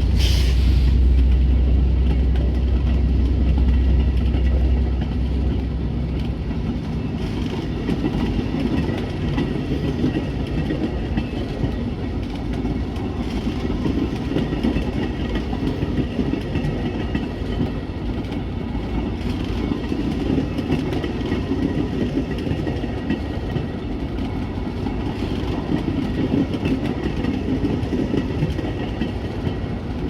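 A train going by. A locomotive's diesel engine drones low for the first few seconds after a brief hiss, then the railcars roll past with a steady rumble and clatter of wheels on the rails.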